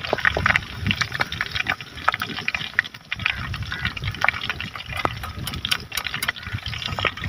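Pieces of rohu fish deep-frying in hot oil in a wok over a wood fire: a steady sizzle full of small, quick crackles and pops.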